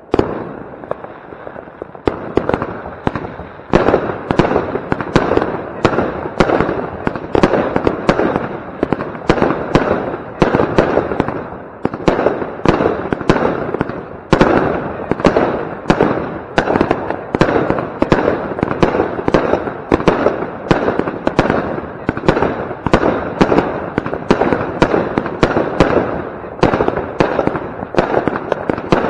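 Pyrocentury "Gold Blauer Himmel" consumer firework battery firing: after a quieter first two seconds, a rapid, unbroken string of launches and bangs, several a second.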